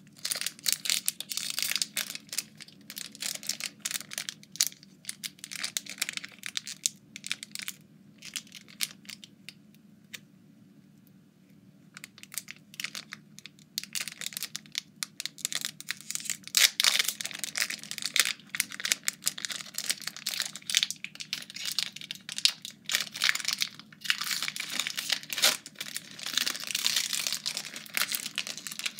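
Foil Pokémon booster-pack wrappers crinkling and rustling as they are handled, in fast irregular crackles with a quiet pause of about two seconds near the middle.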